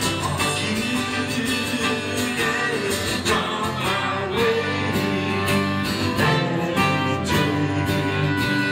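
Live acoustic band playing an instrumental passage: strummed acoustic guitar with cello and trumpet.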